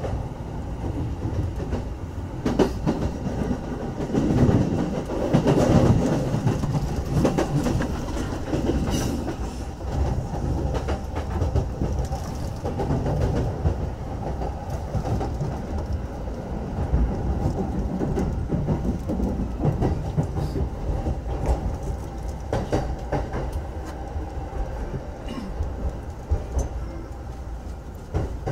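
Running noise of a JR commuter train heard from inside the carriage as it pulls into a station: a steady rumble of wheels on rail with a stream of clicks and clatter over rail joints and points, easing slightly near the end.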